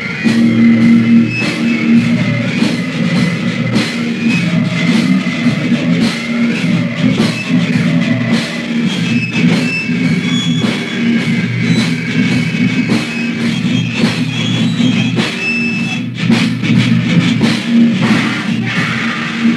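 Hardcore punk band playing on a 1998 demo tape recording: fast drums with dense cymbal hits over distorted guitar and bass, raw and rough.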